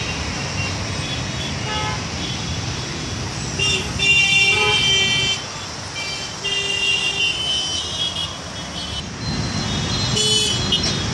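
Busy city road traffic running, with vehicle horns honking several times. The longest and loudest horn comes about four seconds in, with shorter honks later.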